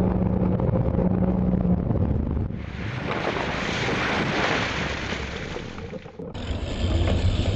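A steady low engine hum with wind rushing over the microphone. The sound changes abruptly about six seconds in.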